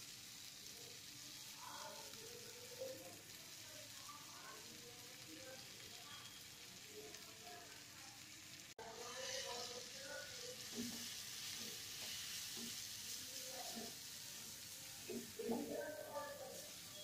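Noodles and vegetables sizzling in a hot pan as a spatula stirs and turns them, with light scrapes and knocks of the spatula against the pan. The sizzle grows louder about halfway through.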